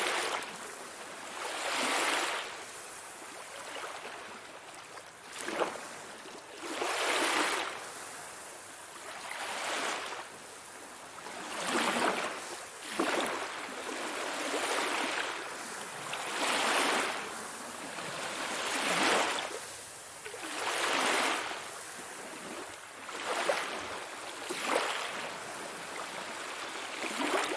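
Sea waves washing in, the hiss of water swelling and fading one wave after another, every two to three seconds.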